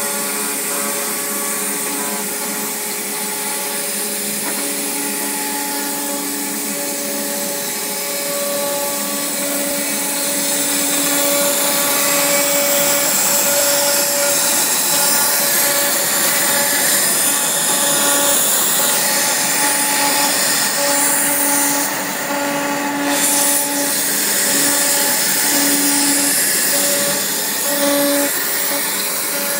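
CNC router spindle cutting Dibond aluminum composite sheet: a steady machine noise with a pitched hum that keeps dropping in and out.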